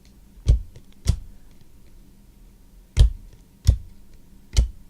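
Five sharp taps or knocks, irregularly spaced, as trading cards are set down on a table while being sorted.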